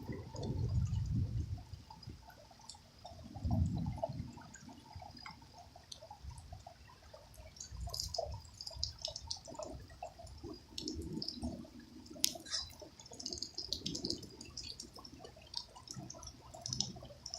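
Rain dripping and splashing off a porch awning in a thunderstorm: scattered drip ticks throughout, with low rumbles near the start and again about three and a half seconds in.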